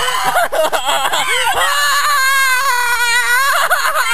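A high-pitched voice crying out: a few short rising-and-falling cries, then one long held wail from about a second and a half in.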